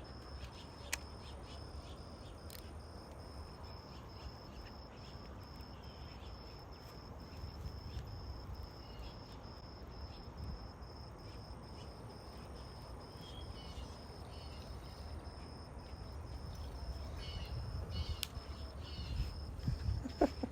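An insect trilling steadily in a high, evenly pulsing tone over a low outdoor rumble, with a few short bird chirps in the last third.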